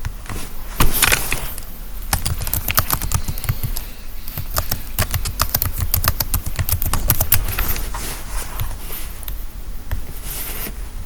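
Typing on a computer keyboard: a quick run of key clicks, densest through the middle of the stretch and thinning toward the end.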